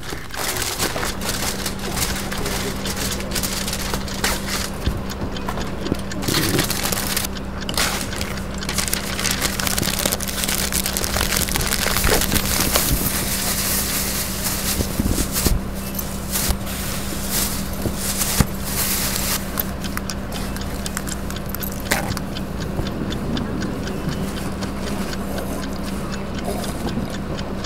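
Dense layered collage of crinkling, crackling and rustling packaging and trash: foil, paper and plastic being crumpled and handled, with many small clicks and scrapes. A steady low hum runs underneath, starting about a second in and stopping shortly before the end.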